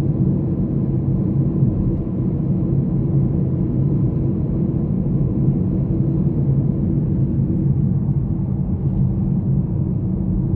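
Steady low rumble of a moving vehicle, road and engine noise running evenly without change.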